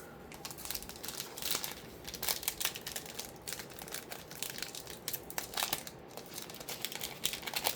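Foil trading card pack wrapper crinkling as it is handled and torn open, with irregular sharp crackles and rustles.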